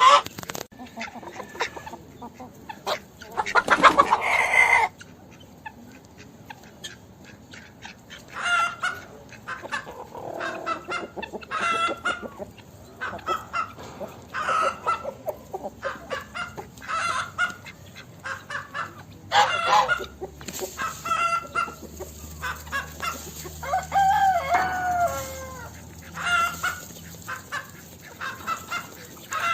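Chickens clucking in short repeated calls, with one long loud call about four seconds in, likely a rooster crowing, and another drawn-out call with a falling pitch near the end.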